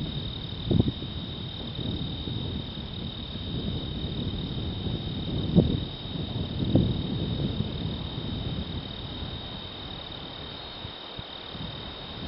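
Wind buffeting the microphone in a low rumble, with sharper gusts about one, five and a half and seven seconds in, easing near the end. Under it runs a steady high-pitched insect chorus.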